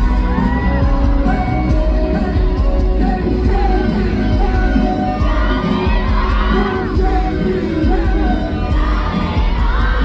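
Live pop music through concert speakers with a heavy bass beat, with singing and audience whoops and shouts rising over it twice, about halfway through and near the end.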